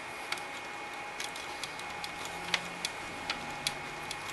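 Small irregular clicks and ticks of hand-tightening the thumb screws that hold a Thermaltake Water2.0 cooler's pump down over the CPU, about ten in all, unevenly spaced, over a steady background hum.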